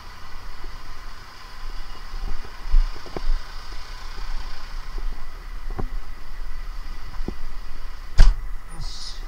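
Scattered knocks and clunks from climbing into a tractor cab and handling its fittings, with one loud thump near the end, over a steady low hum.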